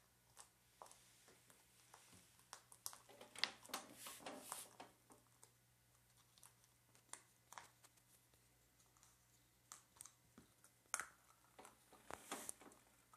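Near silence broken by faint scattered rustles and soft clicks, bunched a few seconds in and again near the end: a Papillon shifting on couch cushions with a toy ball in its mouth.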